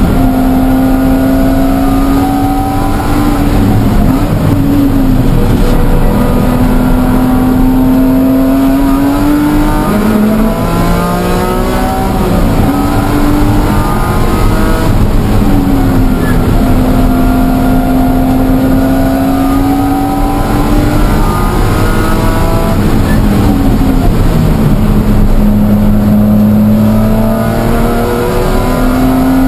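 BMW E46 M3's S54 straight-six at full track pace, heard from inside the stripped, caged cabin. The engine note climbs in pitch under acceleration and drops back several times as the car shifts and slows for corners.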